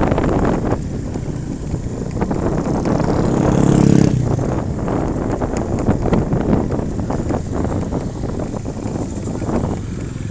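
Motor vehicle traffic with wind buffeting the microphone. One engine passes close, swelling to its loudest about four seconds in and then falling away.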